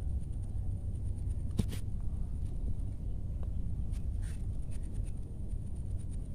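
Hands rustling and scraping through grass and leafy weeds, with a few short scratchy sounds, over a steady low rumble.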